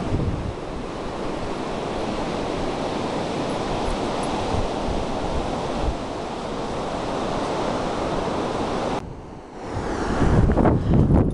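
Surf washing onto a sandy beach with wind, a steady even rush. About nine seconds in it drops away briefly, then heavier wind buffets the microphone with a louder rumble near the end.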